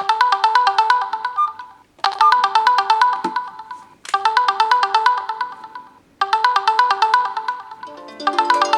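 Mobile phone ringtone: a short phrase of quick, bright notes that repeats about every two seconds. Near the end a second, lower melody starts sounding over it.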